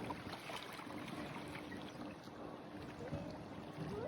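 Outdoor lakeside ambience: a steady wash of noise with a faint steady low hum, and a short rising whistle-like sound near the end.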